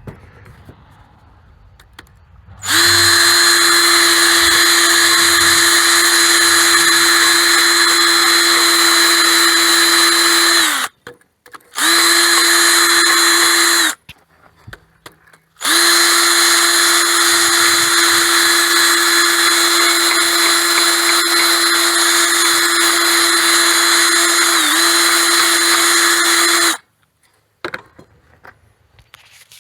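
Handheld power tool spinning a small flap sanding disc, cleaning rust out of the holes in a metal part. It runs at a steady high whine in three goes of about eight, two and eleven seconds, with a brief dip in pitch near the end of the last run.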